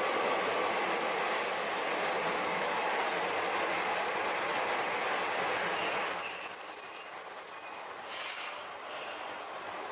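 JR Shikoku KiHa 32 diesel railcar pulling into the station. Its running noise gives way about six seconds in to a steady high squeal of wheels and brakes as it slows to a stop. There is a short hiss about eight seconds in, and the squeal ends just before the end.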